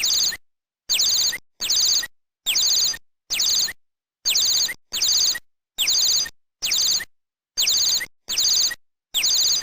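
Bird call sound effect: a short, quick run of high, falling chirps repeated at an even pace about every 0.8 seconds, each call identical as if looped.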